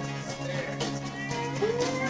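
A band playing country-tinged music: a guitar with a note sliding up and held about one and a half seconds in, over cymbal hits.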